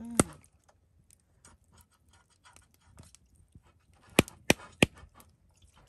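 Sharp clicks at a Coleman portable butane stove with a steel pot: one near the start, faint small taps and rustles after it, then three loud clicks in quick succession about four seconds in, as water is set to heat.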